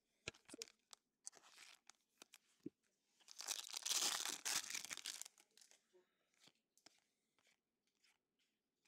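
Hands handling trading cards: a few faint light clicks and taps, then about two seconds of crinkly rustling and tearing-like noise a little past the middle.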